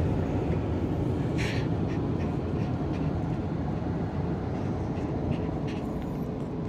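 Automatic car wash machine running around the car, heard from inside the cabin: a steady rumbling noise with a brief hiss about a second and a half in and a few faint knocks.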